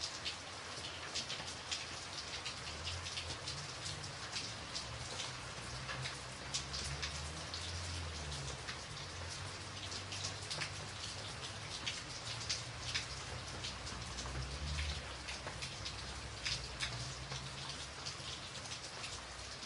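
Steady rain: an even hiss dotted with many sharp individual drop ticks, over a soft, shifting low rumble.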